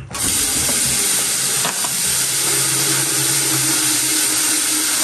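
Sink faucet turned on, running in a steady full stream into the basin. The water comes on abruptly and flows evenly.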